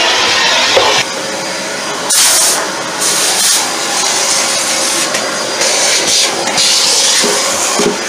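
Vacuum cleaner running steadily while its hose and wand suck up dead German cockroaches and roach droppings, with a sharper hiss surging up several times as the nozzle draws in debris and air.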